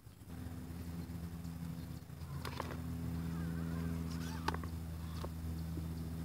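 Electric RC rock crawler's motor and gearbox whining steadily as it crawls over rocks, with a few sharp clicks from the tyres and chassis knocking on stone.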